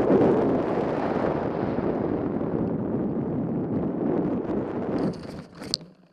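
Airflow rushing over the onboard camera of a radio-controlled Ka 8b scale glider as it glides in low to land. About five seconds in the rush fades as the glider touches down and slides through the grass, with one sharp knock near the end as it comes to rest.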